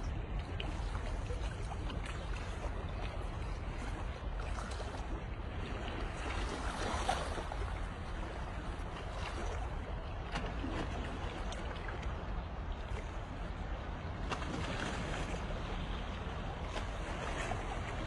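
Sea water washing gently against rocks: a steady hiss with slightly louder swells about seven and fifteen seconds in, over a constant low rumble.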